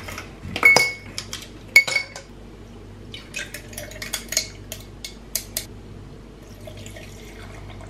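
Ice cubes dropping from a plastic tray into a glass tumbler: two sharp, ringing clinks about a second apart. They are followed by a run of lighter clinks of ice against the glass.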